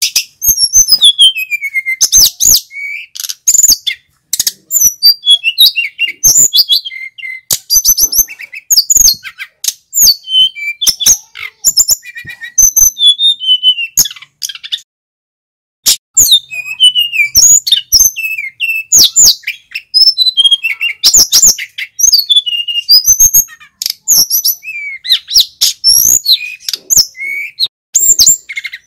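Male sikatan gunung (mountain flycatcher) singing loudly: a fast, dense string of high chirps and whistled notes, many of them sliding downward, with a short pause about halfway through.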